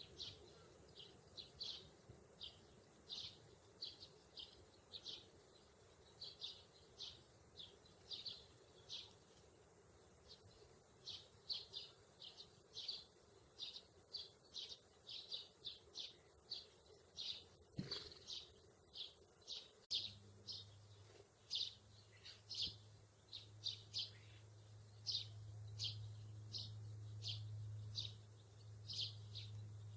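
A sparrow chirping over and over, short single chirps at about one to two a second. About two-thirds of the way in, a steady low hum starts up with a click and keeps going under the chirps.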